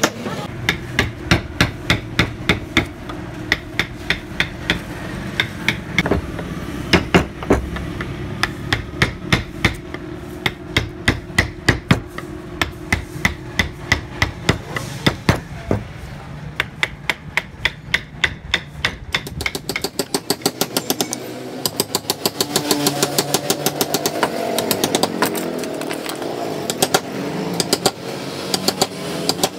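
Wooden mallet tapping a carving gouge into a wooden panel. The taps come in quick runs of several sharp knocks a second, with short pauses between runs.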